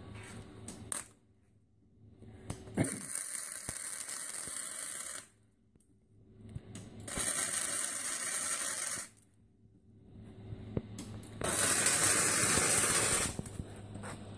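MIG welder arc crackling in three short runs of about two seconds each, with near-silent pauses between, as a crack in a 1927 Model T's steel frame is welded up. A steady low hum runs underneath.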